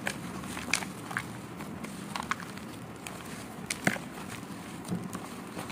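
Hand kneading crumbly finger millet (kurakkan) dough with sesame seeds in a plastic bowl: a steady soft rustling and squishing, with scattered small clicks.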